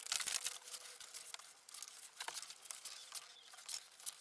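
Paper-backed sandpaper strip rustling and scraping as gloved hands wind it around a drum sander's plywood drum, a faint crinkling with many short scratchy ticks.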